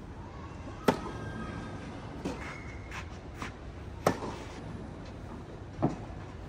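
Tennis ball being struck and bouncing during a rally: three sharp hits, about a second in, about four seconds in and near the end, with softer knocks between them and a brief squeak about two and a half seconds in.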